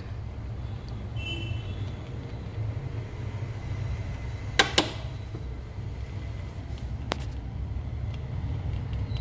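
Steady low mechanical hum, with two sharp clicks, the first about four and a half seconds in and the second about seven seconds in.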